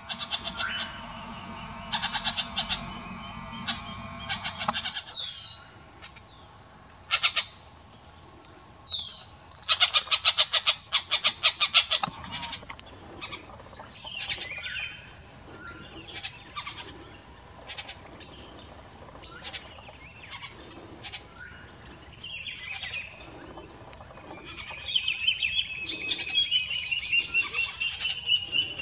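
White-tailed Jays calling: a varied string of harsh calls, a fast clicking rattle lasting about two seconds around ten seconds in, and a quick run of repeated notes near the end. A steady high-pitched buzz sits in the background.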